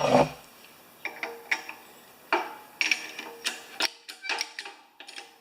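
Mower spindle bearing being pressed into its housing in a homemade bearing press, the old bearing serving as the driver: a run of irregular sharp metallic clicks and knocks, about two a second, with a faint ring underneath.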